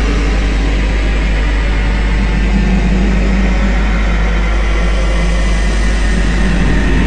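Loud background metal music, a dense, steady wall of distorted sound with a heavy low end.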